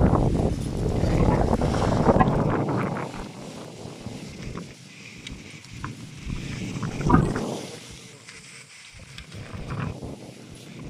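Wind buffeting the phone's microphone: a low rumbling rush, loud for the first few seconds and then dropping to a quieter hiss. There is a brief thump about seven seconds in.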